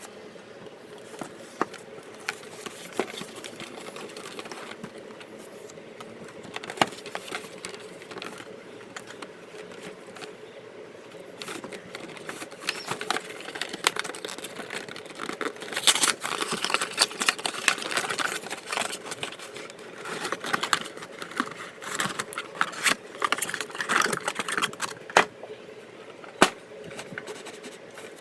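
Hands handling a trading-card tin and its card packs: scattered clicks and taps, growing into busier rustling and crinkling with sharp clicks from about twelve seconds in, over a faint steady hum.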